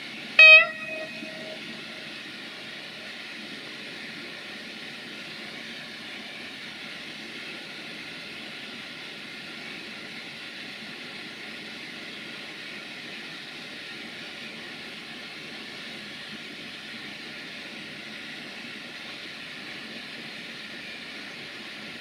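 A Siemens Desiro VT642 diesel multiple unit gives one short horn blast about half a second in, a clear pitched toot that rings on briefly. A steady rushing noise runs underneath.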